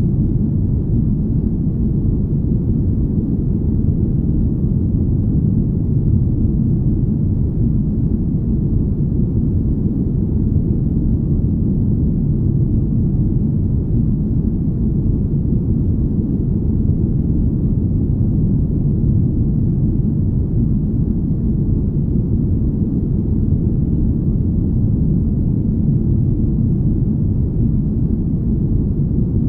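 Deep, smooth rumbling noise, steady and even, with no high sounds in it: a spaceship-hum ambience.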